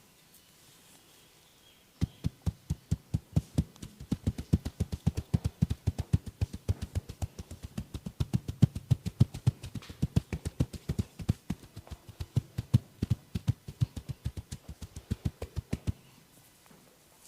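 Rapid percussive massage strikes by hand, dull low thumps at about five a second. They start about two seconds in and stop shortly before the end.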